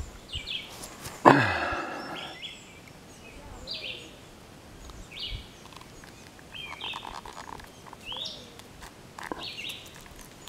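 A songbird calls over and over, short high chirps every second or two. About a second in comes a single louder, sudden noise that trails off downward.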